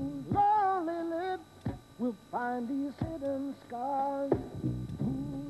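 Background music: a woman singing a slow melody in held notes that step from one pitch to the next.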